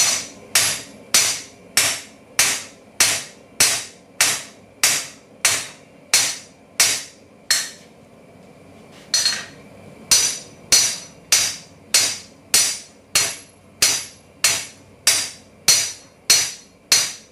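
Hand hammer striking a red-hot steel bar on an anvil in a steady rhythm, a ringing blow a little under twice a second. The blows pause for about a second and a half midway, then resume. The bar's end is being hammered flat and thin to form a mounting tab.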